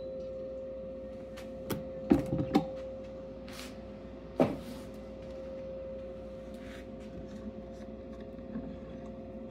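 A resin 3D printer (Anycubic Photon Mono 4K) hums steadily on one tone. Its plastic cover is handled, giving a quick clatter of knocks about two seconds in and one louder knock at about four and a half seconds.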